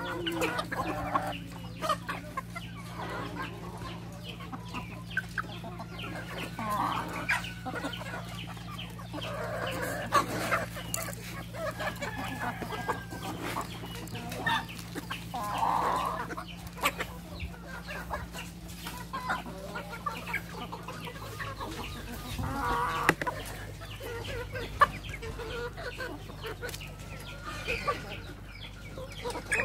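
A mixed flock of chickens clucking and calling as they feed, with many short sharp taps scattered through. A steady low hum runs underneath and changes pitch about two-thirds of the way through.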